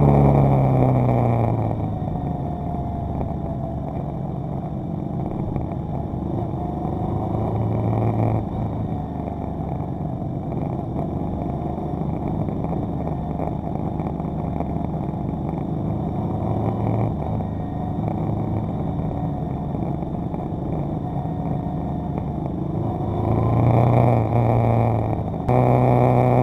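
Motorcycle engine running under way with wind rush: the revs drop at the start as the bike slows into a bend, then pick up again and grow louder near the end. Shortly before the end the sound switches abruptly to a loud, steady engine note.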